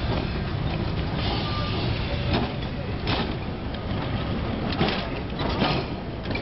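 Kolkata electric tram running on street rails: a steady rumble with several sharp clanks along the way.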